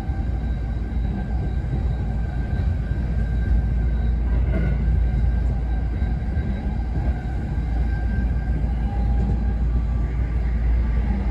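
Running noise of an E217 series train heard inside its bilevel Green car: a steady heavy rumble of wheels on rail with faint whining tones over it, and a brief sharper clack about four and a half seconds in.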